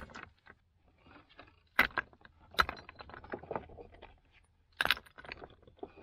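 Rocks being tossed into a sinkhole, landing with a few sharp knocks and clatters about a second apart, over a low steady hum.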